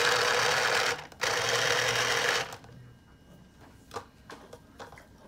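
Small electric citrus juicer's motor running, spinning the reamer while an orange half is pressed down on it. The motor stops for a moment about a second in, runs again, then stops about two and a half seconds in, followed by a few faint clicks and knocks.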